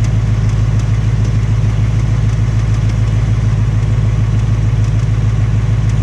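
A 2018 Ford Mustang GT's 5.0-litre Coyote V8 idling steadily with a light tapping over the running. This is the tapping/knocking of a replacement engine with about 1,200 miles on it, which the owner takes for the same fault as the first engine: the 'BBQ tick', or piston slap.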